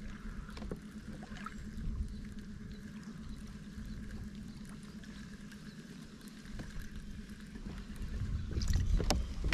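Water lapping and trickling against a kayak hull, over a steady low wind rumble, with scattered small ticks and a sharp click about nine seconds in.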